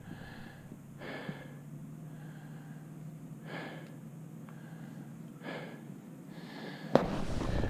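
A person breathing slowly in and out close to the microphone, five breaths spread irregularly, over a low steady hum. A loud rustling bump of clothing against the microphone comes near the end.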